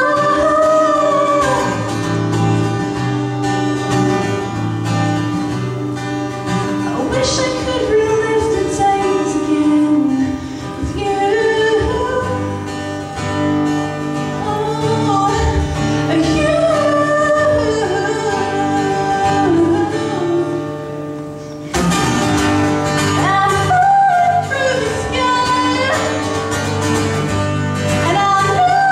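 A woman singing a song while strumming her acoustic guitar, played live. About two-thirds of the way through, the playing briefly drops back, then comes in again fuller.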